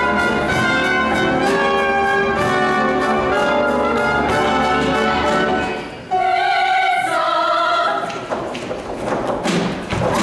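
Show choir singing over a live band with a steady drum beat. About six seconds in, the band drops out and the singers hold a chord almost unaccompanied, then lighter accompaniment comes back in.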